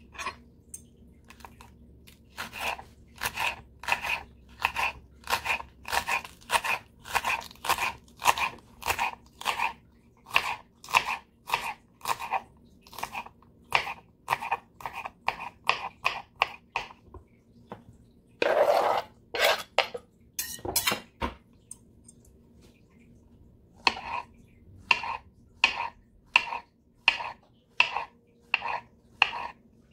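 Serrated knife slicing banana peppers on a plastic cutting board: a long, even run of cuts, about three every two seconds. A short, longer scraping sound comes about two-thirds of the way in, and near the end a quicker run of cuts slices through a baby portobello mushroom.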